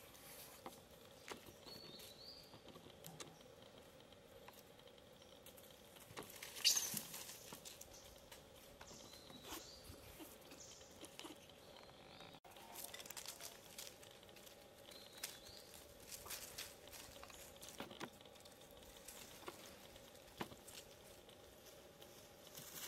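Faint outdoor ambience: scattered light rustling and crackling, with a louder crackle about seven seconds in, a few short high chirps, and a faint steady hum underneath.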